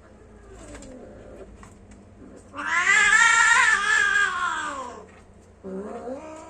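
A cat yowling in a mating call: a faint low wail first, then a loud drawn-out yowl about two and a half seconds long that rises and then falls in pitch, and another yowl starting near the end.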